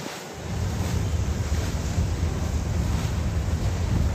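Wind buffeting the microphone over the rush of water, cutting in suddenly about half a second in as a heavy low rumble with hiss above it.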